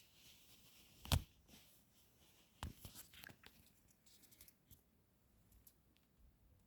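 Quiet rustling with a few sharp knocks: the loudest about a second in, another near three seconds followed by small clicks and rustles.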